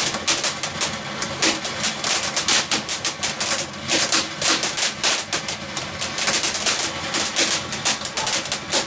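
Crackling firework fountain throwing sparks: a rapid, irregular stream of sharp crackles and pops.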